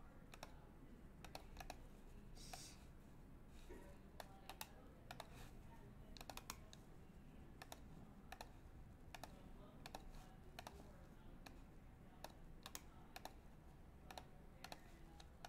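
Faint clicking of a computer keyboard and mouse: scattered single taps and short quick runs of keystrokes.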